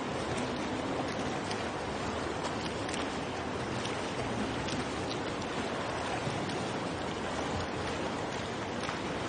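Swimming-pool water noise: a steady wash of swimmers splashing in an indoor pool, with small splashes here and there.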